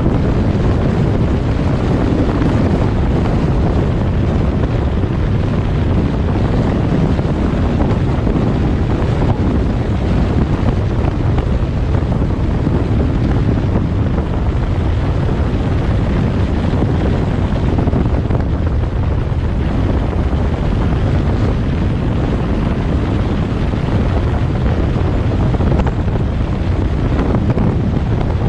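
Steady rush of wind buffeting the microphone over the low rumble of a vehicle driving along the road.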